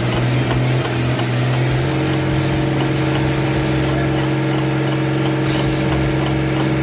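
Engine running steadily at constant speed, with a second, higher engine tone joining about two seconds in.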